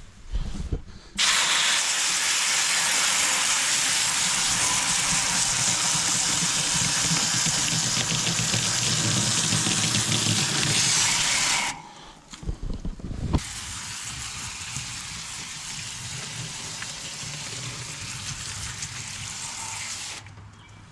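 Garden hose spraying water to rinse an air conditioner's outdoor coil during a tune-up. A strong, even spray runs for about ten seconds, stops briefly with a couple of knocks, then a softer spray runs until shortly before the end.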